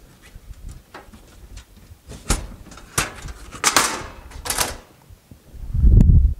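Knocks and clicks from the metal-framed mitre saw cart being handled: a scattering of light, sharp knocks, then a heavy low thump near the end.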